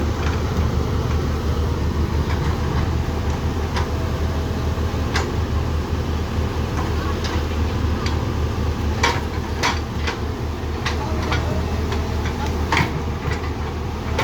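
Heavy excavator diesel engine running steadily with a deep rumble, with scattered sharp metallic clanks at irregular intervals.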